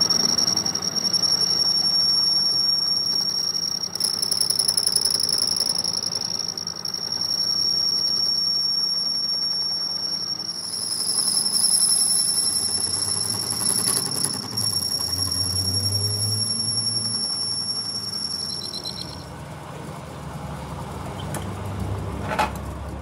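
Lathe spinning a repaired crankshaft while a spinning abrasive wheel polishes the rebuilt shaft end. A steady high-pitched squealing whine sits over the lathe's low running hum. The whine shifts slightly about halfway through and stops a few seconds before the end.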